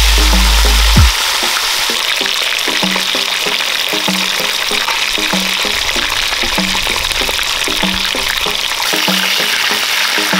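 Whole seasoned fish frying in hot oil in a deep pot, a steady sizzle as they brown. Background music with a repeating melody plays over it, and its heavy bass drops out about a second in.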